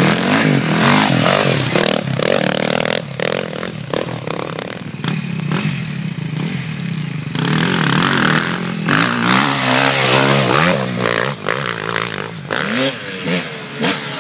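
Enduro motorcycle engines revving as riders pull away from the start gate. The pitch climbs and falls again and again with the throttle, most busily in the second half.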